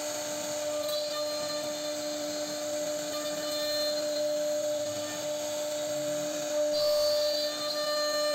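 CNC router spindle running with a steady whine as its bit cuts into a wooden panel, with the rasp of the cut underneath. The tone changes about seven seconds in.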